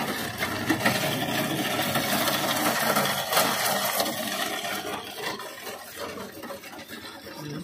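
Hand-cranked groundnut sheller in operation: groundnuts being cracked between the rotating blades and the sieve, a dense, continuous rattling and crackling of pods and shells. It eases off somewhat in the last couple of seconds.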